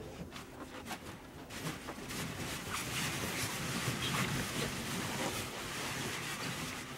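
Latex balloons rustling, squeaking and knocking against each other as a person pushes in among them to hide, with small knocks throughout; the rustling grows about a second and a half in and stops abruptly at the end.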